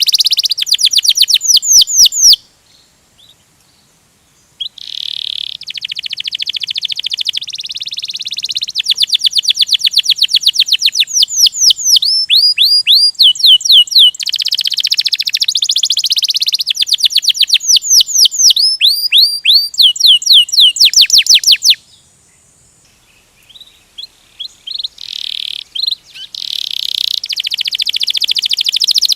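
Domestic canary singing a long rolling song: fast trills of rapidly repeated notes and runs of repeated down-slurred whistles. It stops briefly a couple of seconds in and again about 22 seconds in, coming back with scattered notes before the rolling song resumes.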